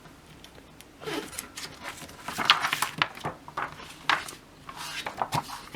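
Irregular rustling and scraping of kit packaging being handled, in short noisy strokes that begin about a second in.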